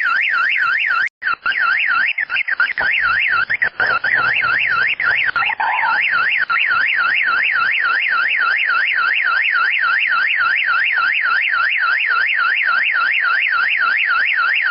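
Car alarm sounding: a loud, high-pitched electronic tone warbling rapidly up and down, about three to four sweeps a second, with a brief dropout about a second in.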